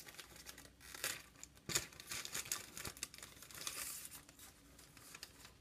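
Thin clear plastic bag crinkling in the hands as a model kit's decal sheet is slid out of it, in short scattered crackles and rustles.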